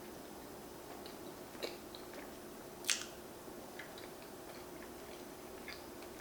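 Quiet chewing of peanut butter and jelly protein pancakes, with a few small clicks, the sharpest about three seconds in.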